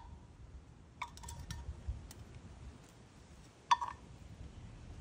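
A few light clinks about a second in and one sharper clink near the end, each with a short ring: the container of stone cleaner being knocked while the paste is poured and spread over an oil stain on stone tiles.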